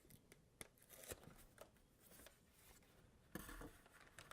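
Faint handling of packing foam in a quiet room: a few light clicks, then a short rustle of foam being pulled open about three seconds in.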